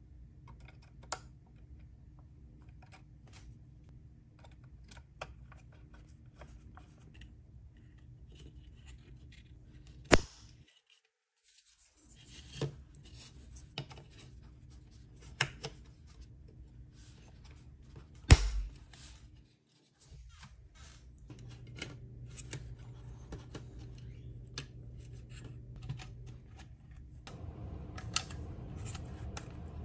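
Small clicks, taps and scrapes of the plastic and metal parts of a die-cast model car being handled and pried apart with tweezers, with a few sharper knocks over a low steady hum.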